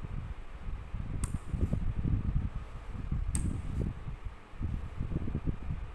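Rotary selector switch of a home-made capacitor-type fan regulator clicking twice, about two seconds apart, as it is turned between positions. Under the clicks runs a low, uneven rumble.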